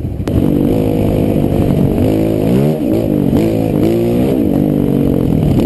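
Honda four-stroke single-cylinder trail bike engine accelerating away, its pitch climbing and then dropping suddenly twice as it shifts up through the gears, with wind rushing on the microphone.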